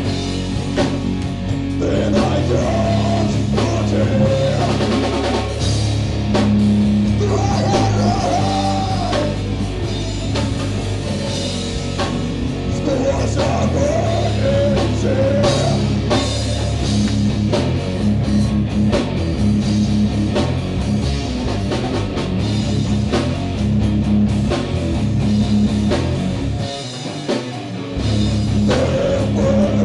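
Heavy metal band playing live: distorted electric guitars, bass and a drum kit, with a singer on the microphone. Near the end, the bass and kick drum drop out for about a second before the full band comes back in.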